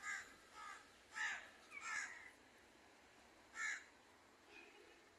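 Crow cawing: about five short harsh caws in quick succession over the first four seconds, the last standing apart, then a faint call near the end.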